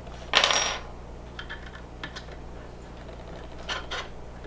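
Small Allen key clicking and scraping in the screws of a metal rifle rail accessory as it is tightened by hand, with a short metallic rattle about half a second in, scattered light clicks, and another brief rattle near the end.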